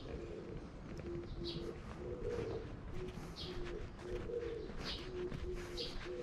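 A dove cooing: a steady run of short low notes at two close pitches, repeated over and over. Short high bird chirps come in about every second and a half.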